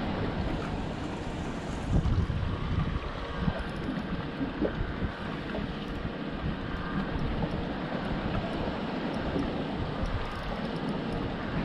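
Wind gusting on the microphone, strongest about two seconds in, over choppy water lapping at the side of a small boat.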